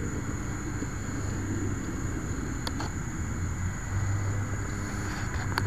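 Muffled low rumble, heard through a microphone buried inside a foam plane's fuselage, with a faint steady high whine and two light clicks, one about two and a half seconds in and one near the end.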